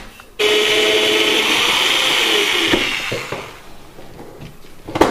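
Benchtop sander's motor running with a steady whine and hiss. It starts sharply about half a second in and winds down, fading out a little past halfway. A light knock comes right at the end.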